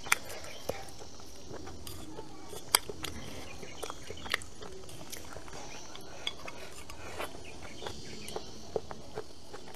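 Chopsticks clicking and scraping against a bowl of rice during eating, in scattered sharp taps of varying loudness. A steady high hum of insects such as crickets runs underneath.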